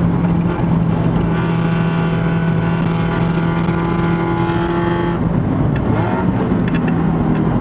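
Spec Miata race car's four-cylinder engine running at high revs, heard from inside the stripped, roll-caged cabin. It holds a steady note for about five seconds, then the note breaks and settles at a slightly lower pitch.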